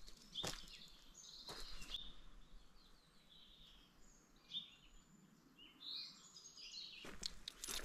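Faint songbirds chirping and calling with short repeated phrases in damp woodland, over a low background hiss. A few sharp clicks sound about half a second in, at about a second and a half, and several near the end.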